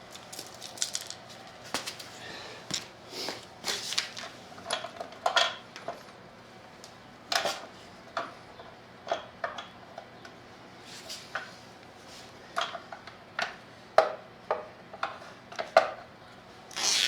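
Irregular metallic clinks and knocks of small hardware, bolts and washers, being handled and fitted by hand, about one or two a second, with the loudest ones near the end.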